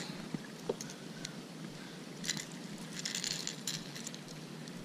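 Scattered light clicks and short rattles of a crankbait's treble hooks and split ring being handled while unhooking a small bass, with the densest clicking about three seconds in, over a steady background hiss.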